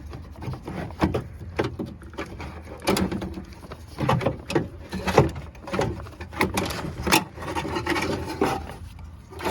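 Irregular clicks, knocks and scraping of hard parts being handled inside a car door as the door lock actuator is worked loose from the door cavity.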